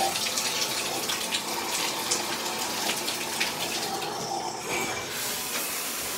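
Water running from a bathtub spout into the tub. About four to five seconds in the sound changes briefly, fitting the spout's diverter being pulled to send the water to the shower head, and it settles into a steady spray.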